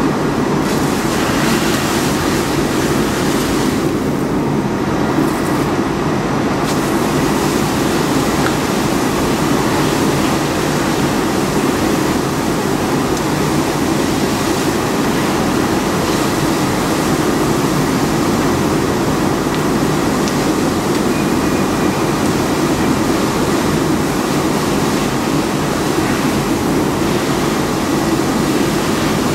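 Steady, loud rumble and hiss of a fire engine's pump running while a firefighter's hose stream sprays water onto a burning pickup truck. The noise runs unbroken, with no sudden events.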